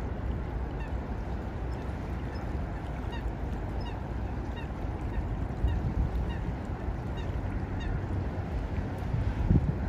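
Wind buffeting the microphone in a steady low rumble, with a gust near the end. Faint, short bird calls repeat through the middle.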